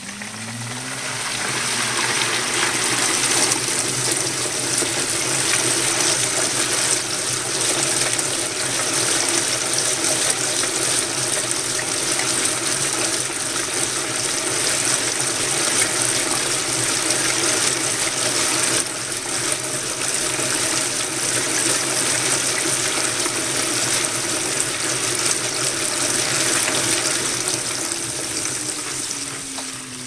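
2012 LG top-load washer's motor speeding up with a rising whine, then turning the wet load of towels and socks round the tub, with water and suds rushing steadily. Near the end the motor's pitch falls as it slows.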